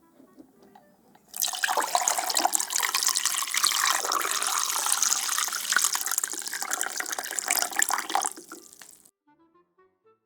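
Liquid pouring or running steadily for about eight seconds, starting just over a second in and stopping abruptly near the end.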